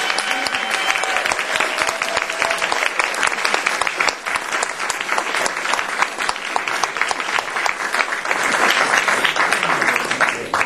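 Audience applauding after a song ends, swelling again near the end; the last held note of the music fades out in the first second or so.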